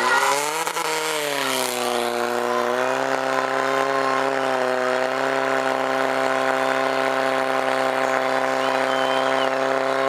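Portable fire pump engine running hard under load, pumping water through the attack hoses. Its pitch wavers and dips in the first couple of seconds, then holds steady.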